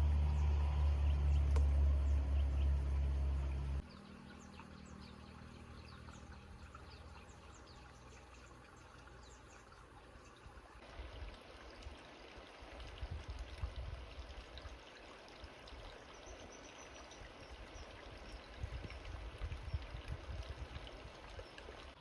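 A motor runs with a steady low hum and cuts off abruptly about four seconds in. Water trickling and lapping follows, with a few low rumbles.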